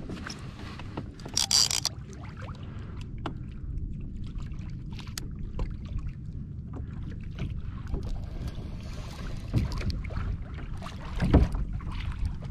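Wind buffeting the microphone and water moving against a Hobie Outback fishing kayak, with scattered small clicks and knocks. A short rush of noise comes about a second and a half in, and a louder thump near the end.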